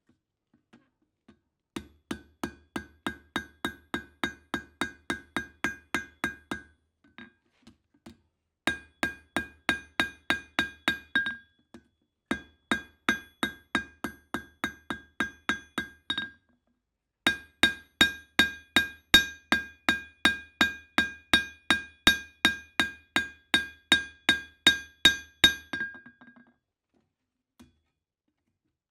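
Forging hammer striking steel on an anvil in four runs of steady blows, about three a second, each blow ringing with a clear metallic tone, with short pauses between the runs.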